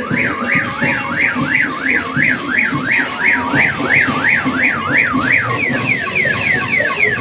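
Electronic siren-type alarm tone sweeping up and down about two and a half times a second, switching near the end to quick repeated falling sweeps.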